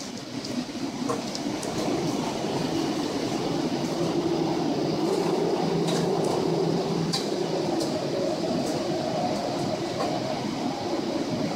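Steady rumble and rush inside a ship's wheelhouse in a storm: the ship's engine and hull vibration with wind and heavy seas against the bow, and a few faint ticks.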